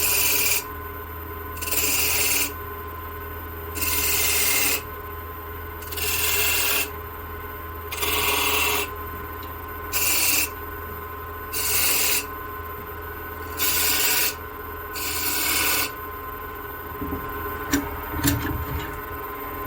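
Diamond tool scraping lines into western cedar turning on a wood lathe: eight scraping strokes about two seconds apart, each under a second long, over the steady hum of the lathe. A couple of sharp clicks follow near the end.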